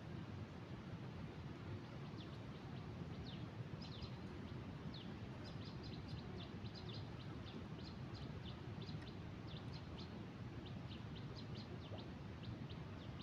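A small bird giving quick runs of short, high chirps, starting about two seconds in, over a steady low background rush.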